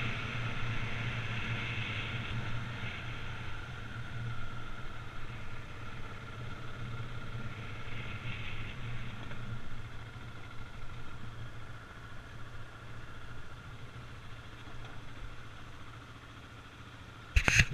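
Husqvarna 701 Enduro's single-cylinder engine running steadily while riding a gravel track, with wind and tyre noise, growing gradually fainter over the last several seconds. A single sharp knock just before the end.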